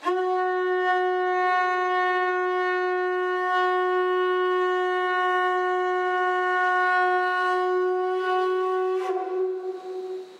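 Conch shell trumpet blown in one long, steady note of about nine seconds that wavers and breaks up near the end.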